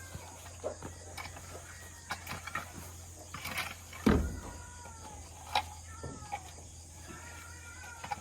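A rake scraping and knocking through dry chicken manure in scattered short strokes, with one heavier knock about four seconds in.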